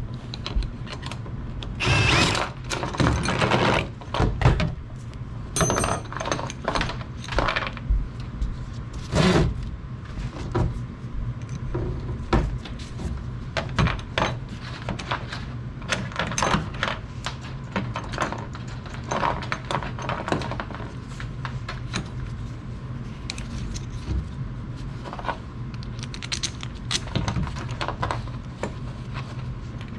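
Clanks, knocks and rattles of hand tools and metal garage-door spring hardware being handled. The busiest, loudest stretch is in the first ten seconds, and a steady low hum runs underneath.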